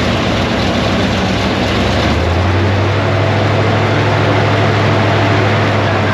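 Airboat engine and caged propeller running steadily, a deeper low drone setting in about two seconds in as the throttle comes up and the prop churns the water to pull away.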